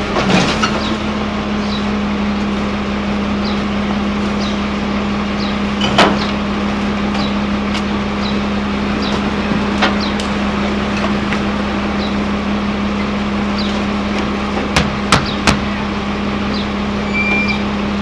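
A garbage truck's engine running with a steady low hum, while bins and rubbish bang against it in sharp knocks about six seconds in and again, three in quick succession, near the end.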